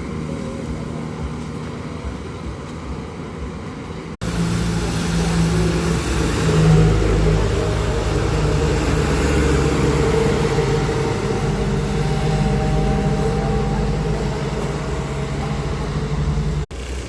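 Road traffic: vehicle engines running and tyre noise. About four seconds in, an abrupt cut brings a louder, closer steady engine note, which cuts off again shortly before the end.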